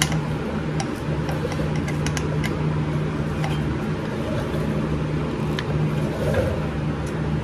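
A steady machine hum with a low tone, with a few faint clicks and taps as hands handle the speed sensor's wiring and connector on the motorcycle.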